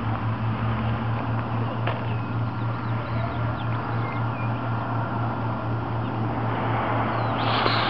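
An engine running steadily with a low, rhythmic throb, over a background of noise and a few faint bird chirps; a brief hiss rises near the end.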